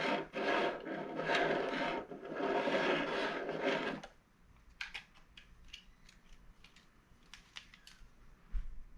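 Plastic packaging being handled, rubbing and crinkling for about four seconds, then dropping to a few faint clicks and taps. A short low thump comes near the end.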